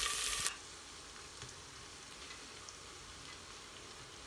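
Cumin seeds frying in hot oil in a steel pot, a loud sizzle that drops off suddenly about half a second in. A faint steady hiss with a few soft ticks follows.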